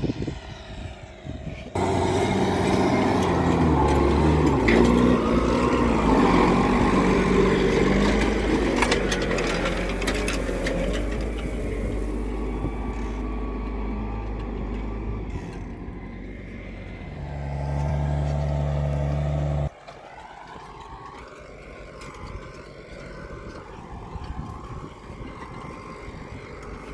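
Farm tractor's engine running close by, loud with a steady low hum. It cuts off abruptly about twenty seconds in, leaving a fainter engine and outdoor noise.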